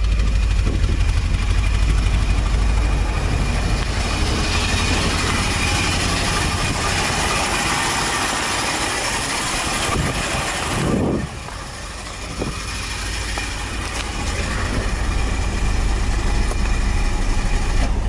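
Vintage Mercedes-Benz sedan's engine idling steadily through its twin exhaust, running again after sitting unstarted for seven years. The sound dips in level briefly about eleven seconds in.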